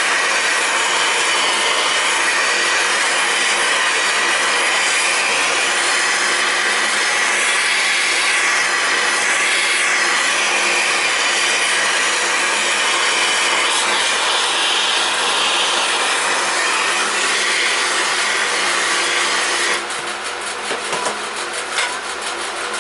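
Steady rushing hiss of a heat tool blowing on an air-cooled VW cylinder head, heating it so the new valve guides will go in. It cuts off about 20 seconds in, leaving quieter clicks and knocks of parts being handled.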